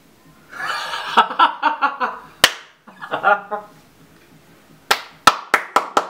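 Laughter, then one sharp smack about two and a half seconds in, and a quick run of five sharp smacks near the end, about four a second.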